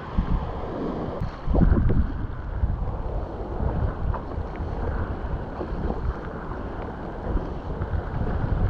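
Wind buffeting the microphone in gusts, a heavy low rumble over the wash of sea surf.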